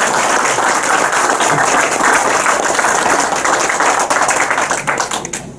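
Audience applauding, with dense, steady clapping that dies away near the end.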